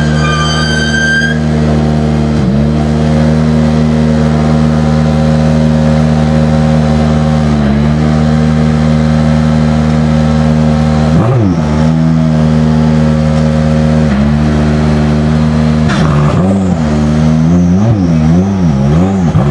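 Ferrari hypercar engine running at a steady high idle, dipping briefly in pitch a few times, with one quick throttle blip about halfway through; in the last few seconds it is revved up and down repeatedly.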